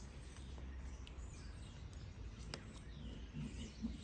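Quiet background hum with a few faint clicks from small parts and tools being handled on a phone under disassembly, one sharper click about two and a half seconds in.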